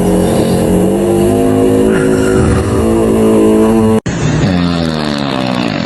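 Loud, buzzing human snoring whose pitch glides slowly up and down, like an engine. It cuts abruptly to another snorer about four seconds in.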